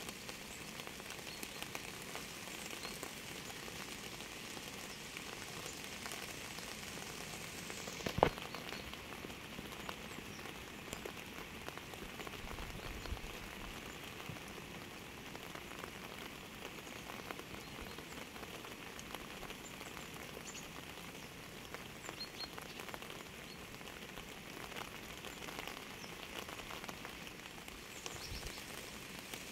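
Steady rain falling on a surface, with many small drops pattering and one loud sharp drop or tap about eight seconds in.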